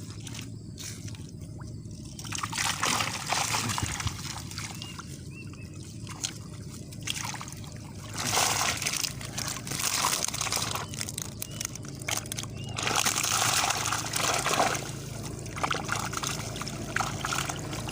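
Water sloshing and splashing in three bouts, with trickling in between, as the day's catch of fish is lifted and handled at the water's edge.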